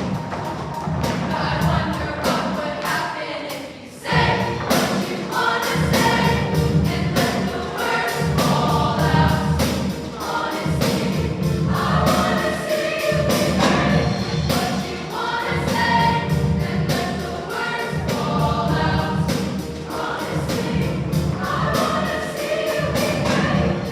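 Choir singing over an accompaniment with a steady beat. The music thins out just before four seconds in, then comes back in full.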